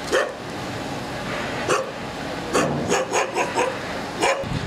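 A dog barking repeatedly in short, sharp barks, several in quick succession about three seconds in, over steady background noise.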